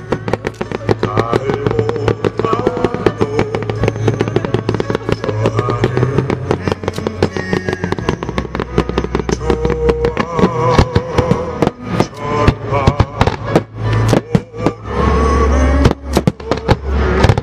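Aerial firework shells bursting in a rapid, continuous crackle of pops over music, growing louder with heavier booms near the end.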